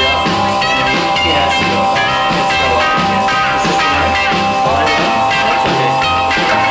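Background music with a steady repeating bass line under long held notes.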